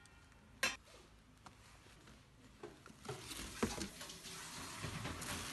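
Quiet handling of a thermal cooker's stainless steel pots: one sharp clink about half a second in, then soft knocks and rubbing from about three seconds in as the upper pot of green beans is lifted out of the large pot.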